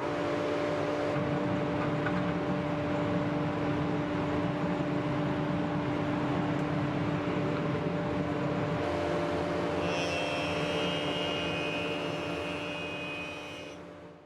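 Workshop power tool motor running at a steady pitch, fading out over the last couple of seconds.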